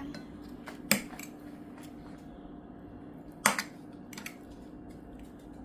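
An eating utensil clicks sharply against a plate twice, about a second in and again about three and a half seconds in, with a few lighter taps after each.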